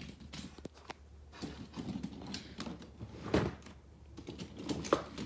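Toy monster trucks clacking and rattling against each other as a hand rummages through a pile of them, with a couple of louder knocks about three and five seconds in.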